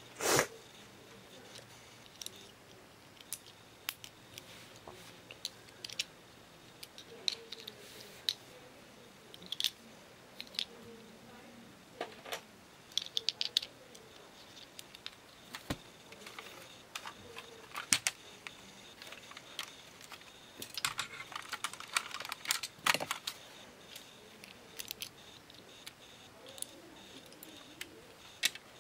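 Hard plastic Lego pieces clicking and clacking as they are handled and fitted together: scattered short sharp clicks, the loudest right at the start and a quick run of them about three quarters of the way through.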